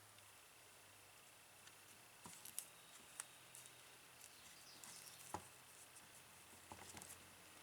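Faint, scattered clicks and light rustling from hands handling small parts and wires during the drill-cord repair, over quiet room hiss.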